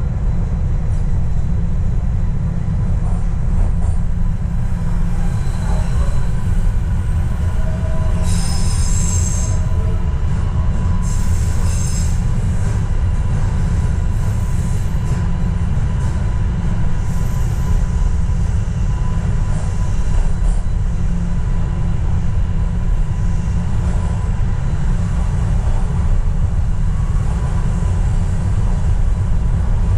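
TTC Line 1 Yonge subway train running through the tunnel, heard from inside the car: a loud, steady low rumble of wheels on rail, with two brief high-pitched wheel squeals in quick succession about a third of the way in.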